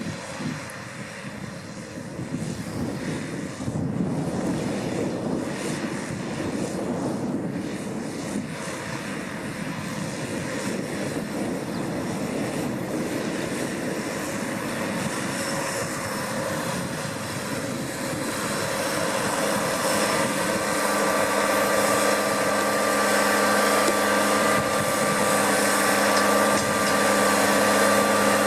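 New Holland T7040 tractor's six-cylinder diesel engine running under load while pulling a seed drill, growing louder as it comes closer. About two-thirds of the way through, a steady whine of several tones comes in over the engine.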